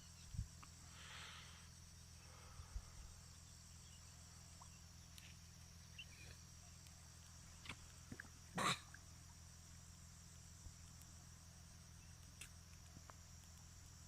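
Faint steady high-pitched insect chorus, like crickets, over a low hum. There are a few soft knocks, and one louder sharp knock a little before the nine-second mark.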